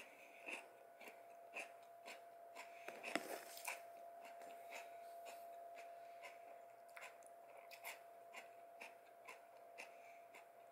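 Faint crunching of raw cucumber being chewed, crisp clicks about twice a second, over a steady faint hum.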